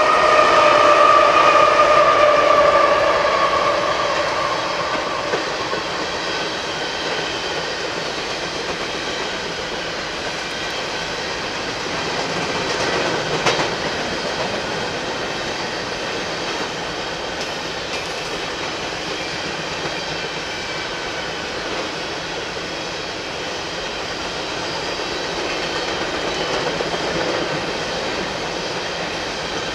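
Freight train passing close by. A loud pitched drone falls slightly in pitch and fades over the first few seconds, then steady rolling of the cars' wheels on the rails, with one sharp knock about halfway through.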